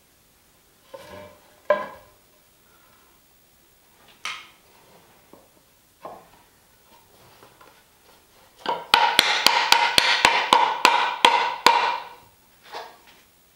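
A mallet knocking glued wenge leg parts together to seat the joints: a quick run of about a dozen sharp knocks, roughly four a second, in the second half, after a few lighter scattered knocks as the parts are handled.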